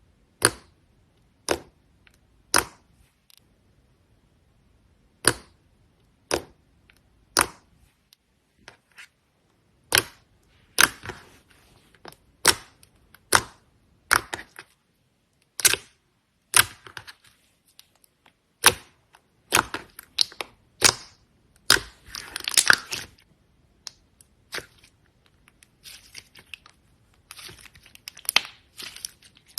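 Slime being pressed and squeezed close up, giving sharp pops and clicks about once a second. In the second half these turn into denser crackling.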